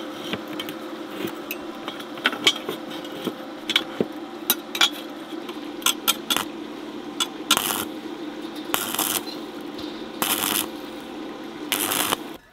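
Steel pieces clinking and tapping as they are set in place, over the steady hum of an inverter welding machine, then four short crackling bursts of a stick-welding arc as the frame is tack-welded.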